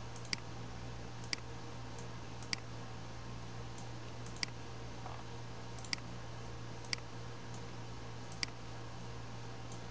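Computer mouse clicking about seven times at uneven intervals, single sharp clicks, over a steady low hum.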